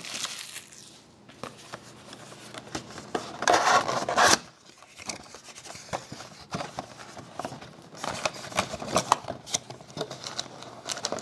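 Hands opening a trading-card box and handling its foil packs: rustling, crinkling and scraping of wrapper and cardboard with many small clicks, and a louder stretch of rustling about three and a half seconds in.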